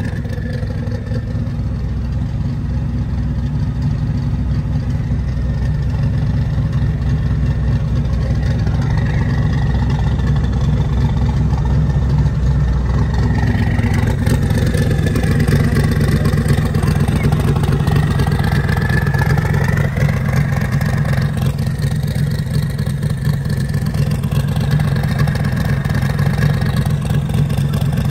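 Twin-turbo LS V8 in a Chevy II Nova drag car idling steadily, its low, even exhaust note loud throughout, with a faint wavering whine above it.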